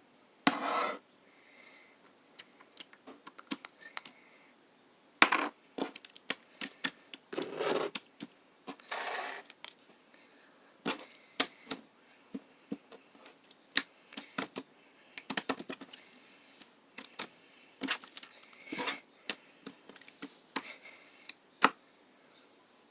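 Slime being squeezed, poked and stretched by hand: irregular sharp clicking pops mixed with short squelching bursts.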